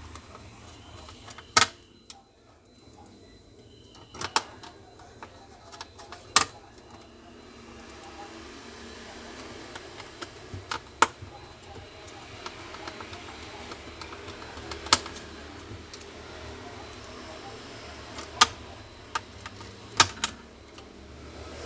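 Sharp clicks and taps of a screwdriver and small screws on a laptop's plastic and metal chassis as the parts are screwed back in, about seven distinct clicks spread a couple of seconds apart.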